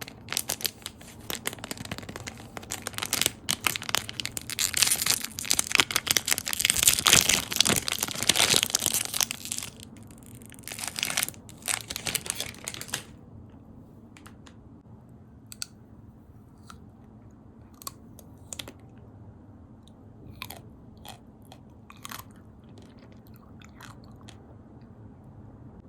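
Close-miked crunching and chewing of chocolate walnuts: dense, loud crunching for about the first half, then quieter, scattered single crunches and mouth clicks as the chewing slows.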